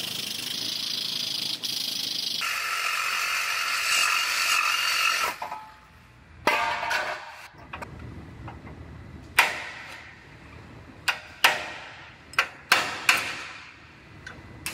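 A steady hiss-like noise for about the first five seconds. It then gives way to a string of sharp metallic clinks and taps, about eight spaced unevenly, as a steel hand tool knocks about inside the truck's steel frame rail.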